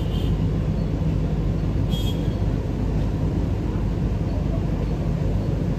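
Steady low outdoor rumble with no speech, with a brief faint high chirp about two seconds in.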